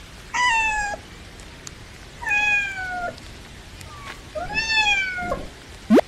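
A cat meowing three times, each meow high-pitched, lasting under a second and falling slightly in pitch. Just before the end comes a brief, fast-rising whistle, the loudest moment.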